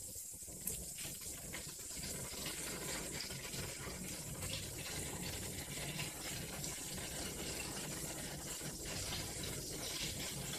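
Bitter gourd cooking in a pan on the stove, a steady quiet sizzle and simmer, with a few faint clicks as pieces of fried chicken are dropped in.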